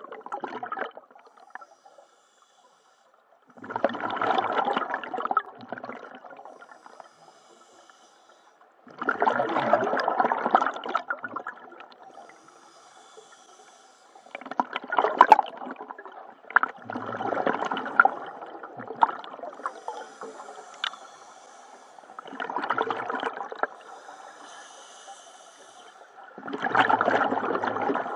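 Scuba diver breathing underwater through a regulator: a bubbly rush of exhaled air about every five seconds, with quieter hissing between breaths.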